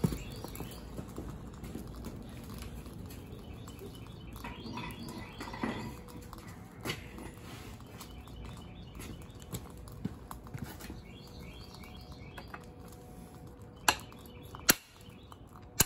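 Steady low rushing noise with faint chirps, then sharp hammer blows on steel near the end, two close together and a third just after: an old control-arm bushing casing being driven out of the arm after its rubber has been melted with heat.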